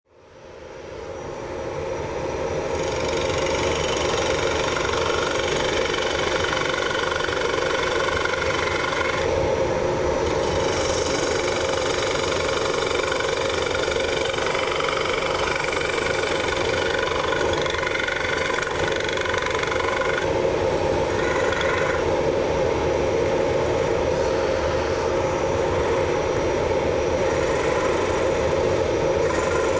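Wood lathe spinning a bowl blank while a carbide-tipped hollowing tool (the Easy Wood Tools Easy Finisher) roughs out the inside, a steady machine noise with a scraping cutting hiss that shifts as the cut changes. It fades in over the first few seconds.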